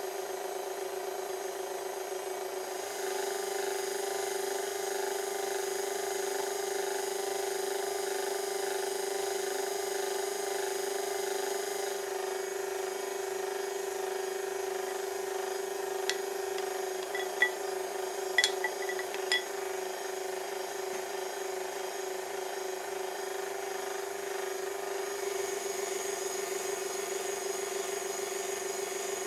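KitchenAid stand mixer's motor running steadily with its whisk attachment beating egg whites, a steady whine that gets a little louder about three seconds in. A few sharp ticks come about two-thirds of the way through.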